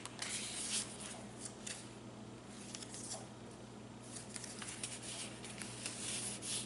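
Light paper rustling with short scratchy handling sounds as the pages and paper inserts of a handmade junk journal are turned and handled.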